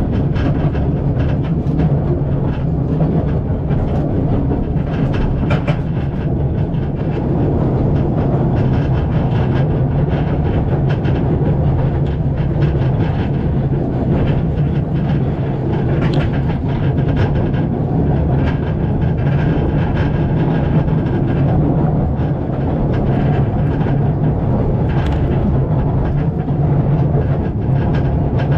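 Narrow-gauge passenger train rolling along the track, a steady low rumble with scattered clicks and rattles from the wheels and carriage.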